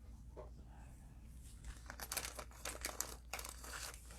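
Cellophane wrapper of a sealed trading-card pack crinkling as it is handled and torn open, in a quick run of crackles from about halfway through.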